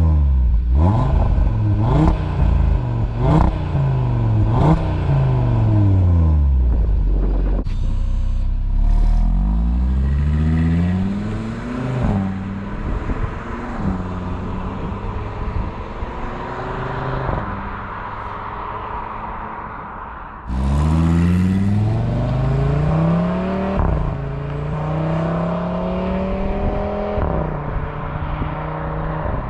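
Audi RS3's turbocharged five-cylinder engine and exhaust: four quick rev blips, then later a hard acceleration with the revs climbing and dropping back twice as it shifts up.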